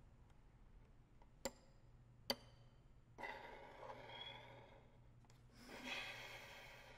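Solo violin played with extended techniques, very quietly: two sharp taps about a second apart, then two soft, airy bow strokes, mostly noise with little clear pitch.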